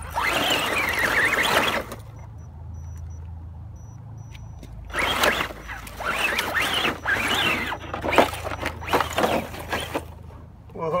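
Axial SCX10 RC crawler's electric motor and gear drive whining, rising and falling with bursts of throttle as it climbs a steep dirt and root bank, with scrabbling and knocks from the tyres and chassis. It goes quieter for about three seconds after the opening burst, then whines hard again with sharp knocks near the end as the truck nearly tumbles.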